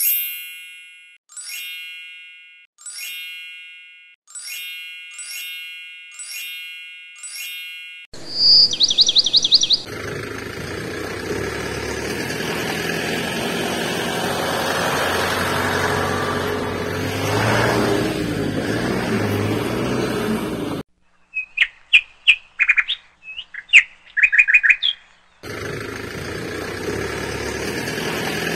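A string of added sound effects: a chime-like tone repeating about every second and a half, then a short chirping trill, a long stretch of steady noise, and a burst of bird chirps a little after the middle.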